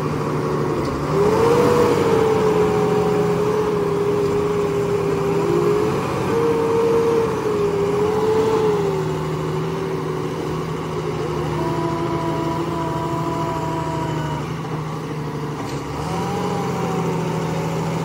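New Holland 4x4 tractor running with its baler working behind it: a steady machine drone with a whine that rises in pitch about a second in and drops lower around halfway.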